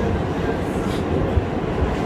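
Interior of a New York City subway car running through a tunnel: a steady, loud rumble and rattle of the wheels and car body, with a couple of short knocks in the second half.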